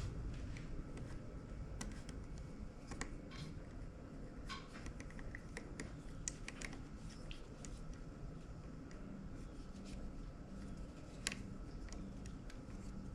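Scattered light clicks and taps of a cassette deck's small parts and screws being handled with tools, busiest in the first half, with one sharper click near the end.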